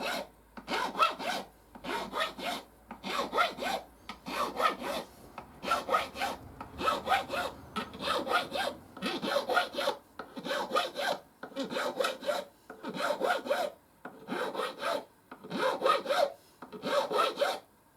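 Triangle file stroked up and down along the bevelled fret ends of a guitar neck, about one rasping stroke a second, taking the rough edge and tiny burrs off the frets. The strokes stop right at the end.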